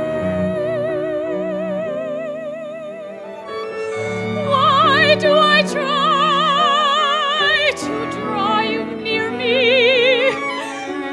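Solo soprano singing long held notes with wide vibrato, in a trained classical style, over piano accompaniment; the line climbs to louder, higher notes about four seconds in.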